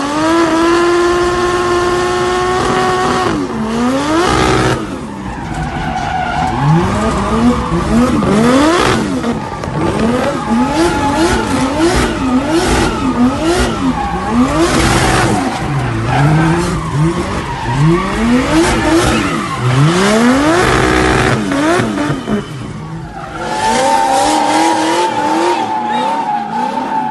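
1.5JZ inline-six in a Nissan S14, heard from inside the car while drifting: the engine holds high revs for a few seconds, then revs up and down again and again, about once a second. Tyres squeal under it, with a steady squeal near the end.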